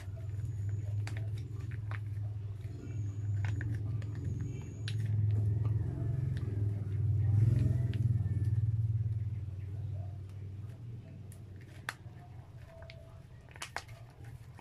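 A low rumble, loudest in the middle and fading in the last few seconds, with scattered sharp clicks and wet mouth sounds as cheese sauce is squeezed from a sachet and eaten.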